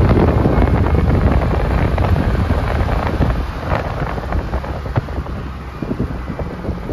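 Strong wind buffeting the camera microphone: a loud, ragged low rumble that eases slightly toward the end.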